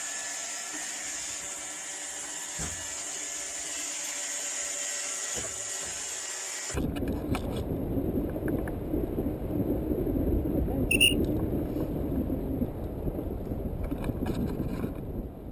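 A robot vacuum cleaner running with a steady motor whine. About seven seconds in it cuts off abruptly to wind buffeting the microphone of a paraglider's camera, a loud low rushing noise, with a short high-pitched tone about eleven seconds in.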